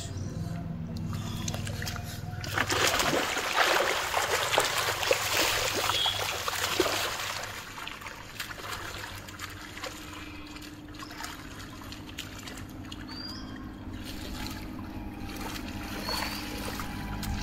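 Muddy water splashing and sloshing, with many small splashes, loudest from about two and a half to eight seconds in, then settling to a quieter trickle.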